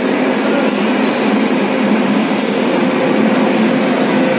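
Metal lathe running, its four-jaw chuck spinning with an off-centre workpiece: a steady mechanical drone of motor and gearing. A brief high-pitched squeal comes about two and a half seconds in.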